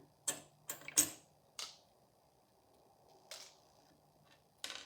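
Small sharp metallic clicks and taps, about six scattered unevenly, the loudest about a second in, as the pins and springs of a euro cylinder lock are taken out of its chambers and handled during gutting.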